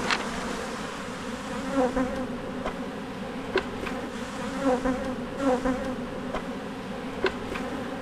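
Honeybees buzzing in numbers: a steady drone, with single bees passing close by so the pitch swells and falls every second or so. A few light ticks are heard as well.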